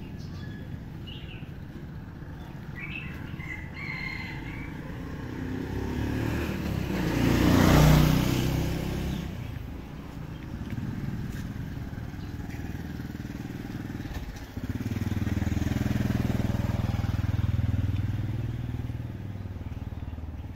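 Motorbike engines on a village road: one passes close about eight seconds in, rising and then fading, and another engine runs steadily for a few seconds near the end. A few faint high chirps come a few seconds in.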